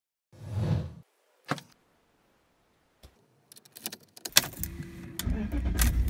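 Keys jangling and a sharp click as the ignition key is turned, then a car engine cranks and starts, running with a loud, low rumble near the end. A dull thud is heard about half a second in.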